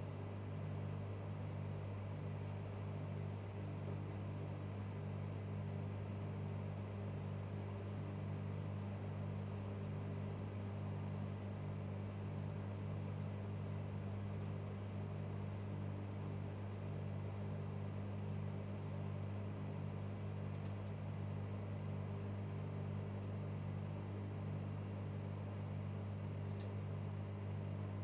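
Microwave oven running: a steady low hum with a regular pulsing in it, a little faster than once a second.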